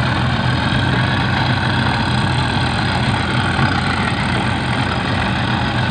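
Yamaha outboard motor running steadily at an even speed, a low constant engine hum.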